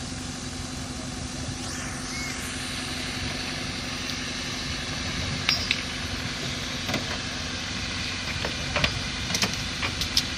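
Force Gurkha off-road 4x4's diesel engine idling steadily, with a few sharp clicks in the second half.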